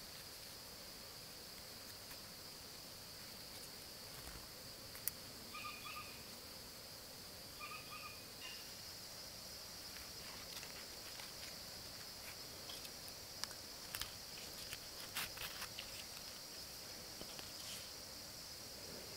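Steady high-pitched drone of an insect chorus, with two short calls from an animal about six and eight seconds in. Scattered light ticks and rustles come from nylon cord being handled and wrapped against tree bark, mostly in the second half.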